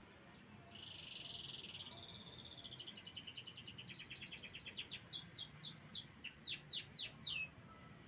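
Domestic canary singing: a few short chirps, then a long fast trill, then a run of about ten loud downward-sweeping whistles. The song stops abruptly near the end.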